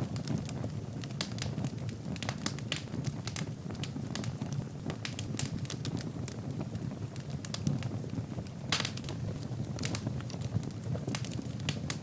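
Birch-log fire crackling, with irregular sharp pops over a steady low rush of the flames; a quick run of louder pops comes about nine seconds in.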